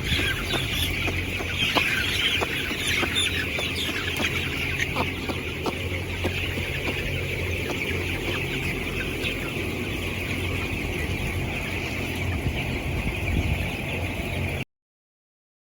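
A large flock of broiler chickens chirping and clucking without a break, over a steady low hum; the sound cuts off abruptly near the end.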